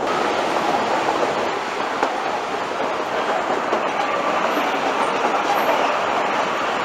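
Running noise of a narrow-gauge train heard from inside a moving carriage: a steady noise of wheels on the rails.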